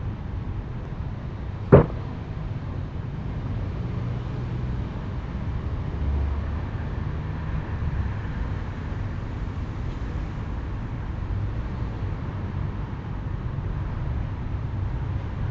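A single sharp bang of metal being struck, about two seconds in, over a steady low rumble.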